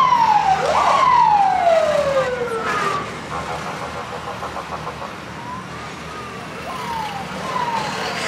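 Vehicle siren in repeated sweeps, each a quick rise and then a long slide down in pitch. Loud for about the first three seconds, then fainter, shorter sweeps. A vehicle engine runs steadily underneath.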